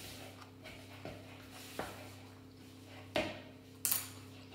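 A spatula scraping and knocking against a plastic mixing bowl as soft butter, sugar and cinnamon are beaten together into a filling. There are a few short knocks, the loudest about three seconds in and just before four.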